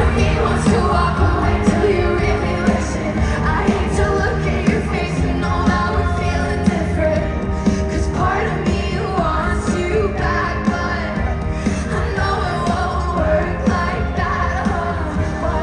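A live pop band playing with a woman singing, loud amplified music with a steady beat, picked up by a phone recording from the audience in a concert hall.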